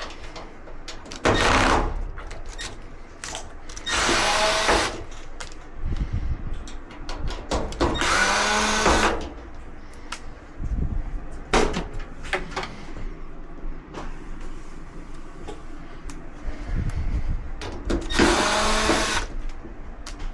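A power drill/driver runs in four short bursts of about a second each, with its pitch sliding within each burst as it backs out screws. Short clicks and knocks of handling fall between the bursts.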